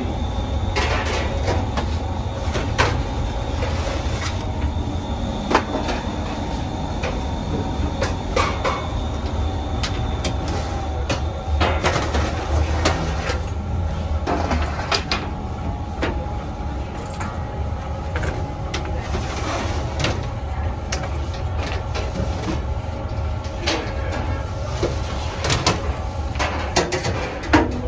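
Steady machine hum of a bakery oven and its equipment, with irregular metallic clanks and scrapes as metal baking trays of bread are slid in and out of the oven and knocked about.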